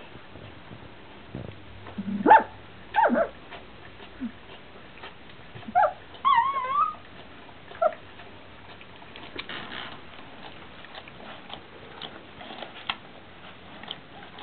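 Three-week-old golden retriever puppies squeaking and yelping: a handful of short high calls in the first half, with one longer wavering whine about six seconds in. Faint small clicks follow in the second half.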